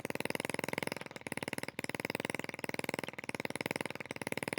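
Homemade two-stroke engine built from a refrigerator compressor, running steadily with a rapid, even firing rhythm.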